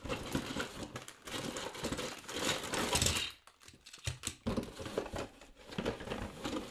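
Plastic bags of Lego Duplo bricks crinkling and rustling as they are handled and lifted out of a cardboard box, with light clicks and knocks of the plastic parts, and a short pause a little past halfway.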